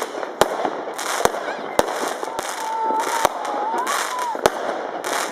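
Fireworks going off: sharp bangs about once a second over a steady crackle of many smaller explosions, with a wavering whistle in the middle.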